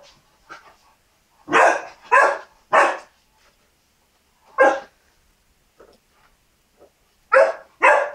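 St Bernard puppy barking in short, sharp barks: three in quick succession about a second and a half in, one more in the middle, and two together near the end.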